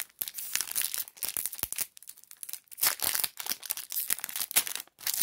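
Foil wrapper of a trading-card pack crinkling and tearing as it is handled and opened, in two spells with a short pause about two seconds in.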